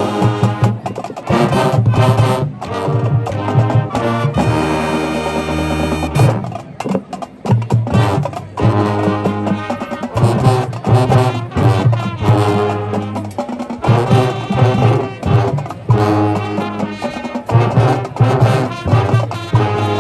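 High school marching band playing an up-tempo tune on brass and drums, with a held full-band chord about four seconds in before the rhythmic playing resumes.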